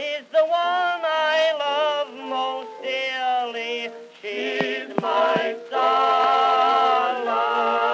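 Music from a 1908 Edison cylinder recording: a male singer with accompaniment finishing the chorus, ending on a long, wavering held note near the end. The sound is thin with no deep bass, and three sharp clicks come a little past halfway.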